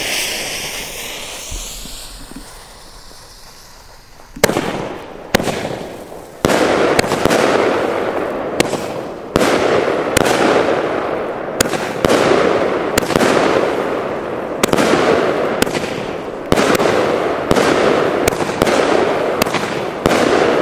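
Klasek 'Scream' fireworks battery (cake) firing: after about four seconds of a fading hiss, the shots begin and follow one another about one to two a second, each a sharp crack trailing off in a noisy tail.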